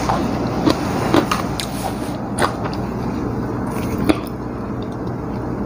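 Eating with the fingers: chewing and small smacks and clicks from mouth and plate, a few short ones spread through, over a steady low hum of background noise.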